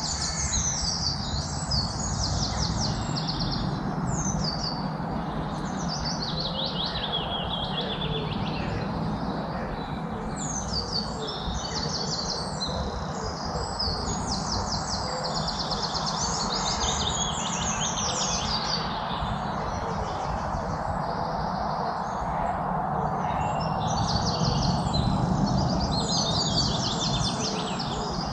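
Songbirds singing in high, rapid trills and falling runs of notes, one phrase after another, over a steady background rush.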